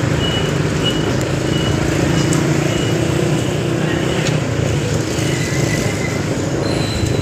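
Motorcycle engine running steadily while riding through city traffic, with road noise. A short high electronic beep repeats a little under twice a second through the first three seconds or so.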